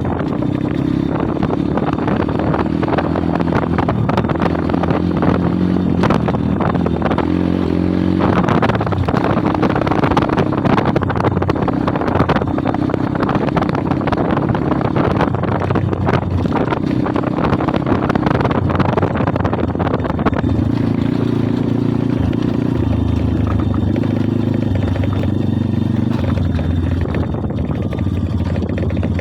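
Kayo 140cc pit bike engine running under way, its pitch stepping up and down as the rider works the throttle and gears.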